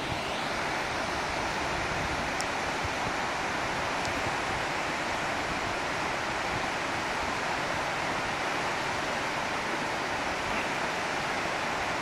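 Waterfall and rocky mountain stream rushing, a steady even noise of falling and tumbling water.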